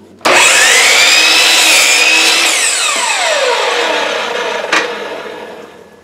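Electric miter saw switched on with a sudden loud whine and cutting through a pine board, then the trigger released and the blade winding down, its whine falling steadily in pitch as it fades. A single sharp click near the end.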